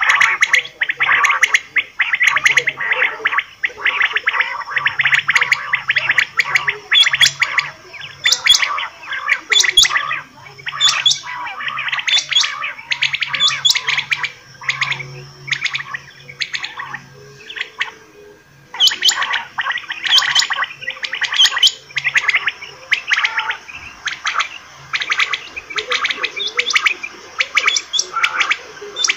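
Quail calling: fast runs of short, clipped notes packed closely together, with a brief lull a little over halfway through before the calling resumes.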